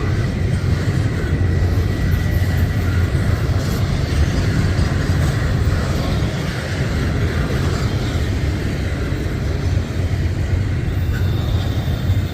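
A passing train giving a steady, loud low rumble.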